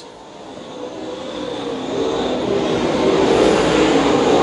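A pack of dirt-track race car engines running hard, growing louder over the first three seconds as the field comes closer, then holding steady.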